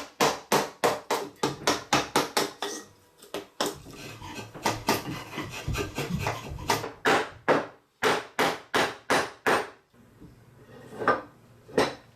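A chisel being struck as it chops out walnut to clean up a routed recess: runs of sharp knocks, about three a second, with short pauses between runs and a few single knocks near the end.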